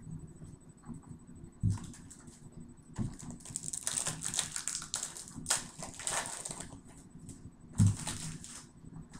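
Trading cards being handled: a few soft knocks and three stretches of cards sliding and rustling against each other.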